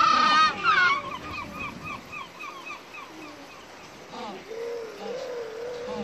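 African penguins (Spheniscus demersus) braying: a loud donkey-like call ends about a second in, followed by a fast run of short notes, about four a second, that fade. From about four seconds in, a lower-pitched, wavering, drawn-out call follows.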